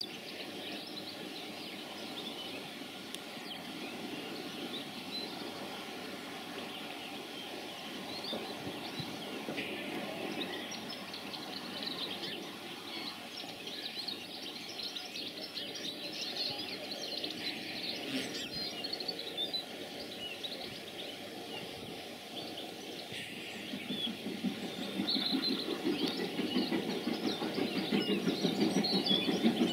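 Birds chirping over steady outdoor background noise. About two thirds of the way in, the rhythmic exhaust beats of an approaching steam locomotive start up and grow steadily louder.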